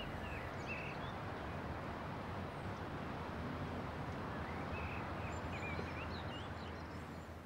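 Steady outdoor ambience: an even rushing noise with a few short bird chirps about half a second in and again around five to six seconds. It fades out near the end.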